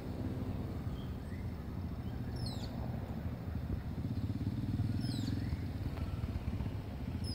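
Small motorcycle engine running at low speed, getting a little louder and higher about four to five seconds in. A bird repeats a short falling chirp about every two and a half seconds.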